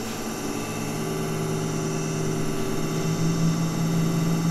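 Low, steady electronic drone from a responsive sound installation's digital synthesis: several held tones stacked together, growing slightly louder, with the lowest tone wavering near the end.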